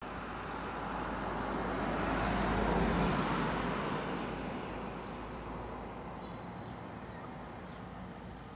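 A passing road vehicle's engine and tyre noise, swelling to its loudest about three seconds in and then slowly fading away.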